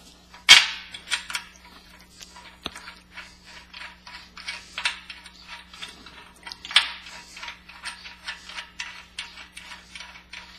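A hex nut being spun by hand onto the threaded rod of a snow blade's spring assembly: irregular small metallic clicks and scrapes, with louder clacks about half a second in and again near seven seconds.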